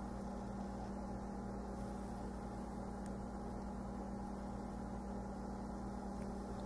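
Steady low background hum with a faint hiss, unchanging throughout.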